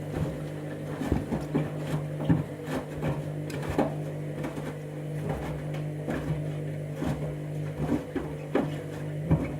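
Candy washing machine drum turning in the main wash with its motor humming steadily. Irregular knocks and clatter come from slippers banging about inside the drum.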